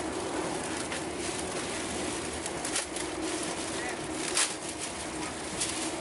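Passenger train running, heard from inside the carriage: a steady rumble and hiss, with a few short rustles of plastic bags being handled.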